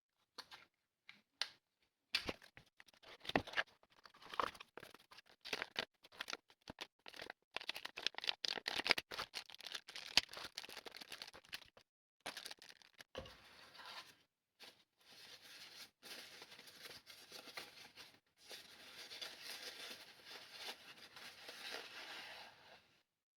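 Close handling noises of small parts and packaging: a dense run of clicks and scratches, then a steadier rustling that stops just before the end.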